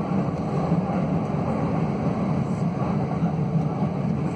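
Steady low rumble of a train running at speed, heard from inside the passenger car.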